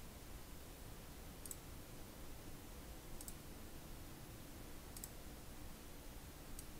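Computer mouse clicking: about four faint, sharp single clicks spaced roughly a second and a half apart, over faint room tone.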